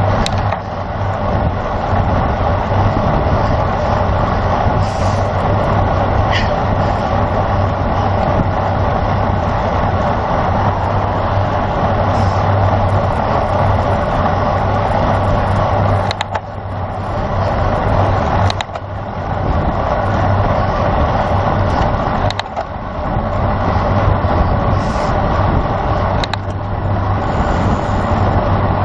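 Steady rush of wind and road noise on a cycling camera's microphone at race speed, with a low hum underneath. The level dips briefly a few times in the second half.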